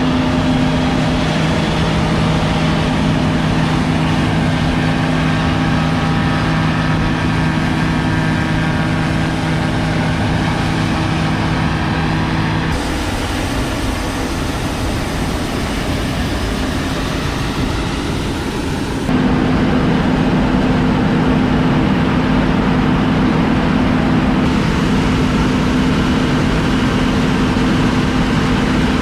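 Combine harvester running steadily while cutting wheat: a loud, even diesel hum with steady low tones. The sound shifts abruptly twice, about 13 and 19 seconds in.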